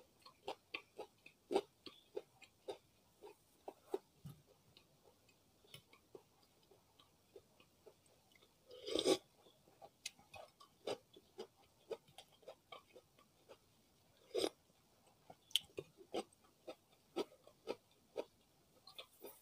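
Close-miked chewing of martabak telor (savoury stuffed egg-and-meat pancake) with pickled cucumber: irregular wet mouth clicks and soft crunches, a few a second. A longer, louder noise comes about nine seconds in.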